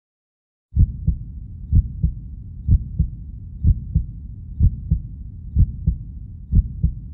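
Heartbeat sound effect: a low double thump, lub-dub, about once a second over a steady low rumble, starting just under a second in.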